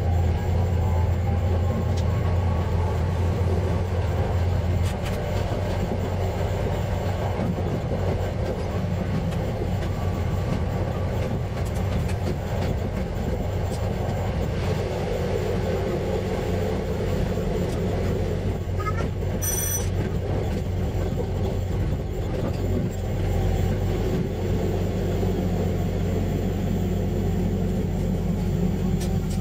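KTR700 diesel railcar running along the line, heard from the cab: a steady low engine drone with wheel and rail rumble, the drone easing after the first few seconds. A brief high-pitched beep sounds about two-thirds of the way through.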